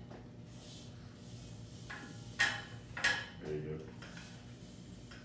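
Steps of a prosthetic leg walking on a hard floor between parallel bars, with two sharp clicks or knocks about two and a half and three seconds in.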